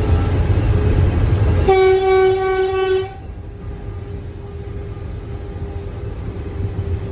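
Train running with a low rumble; just under two seconds in, the locomotive horn sounds one steady blast of about a second and a half, after which the train runs on more quietly.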